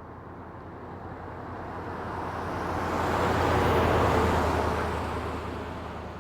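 Heavy truck passing by: its noise builds, is loudest about four seconds in, and then fades away.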